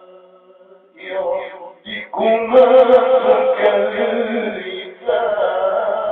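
A man's voice reciting the Quran in melodic tajweed chant, holding long wavering notes. It comes in about a second in after a brief pause and breaks off for a moment near the end.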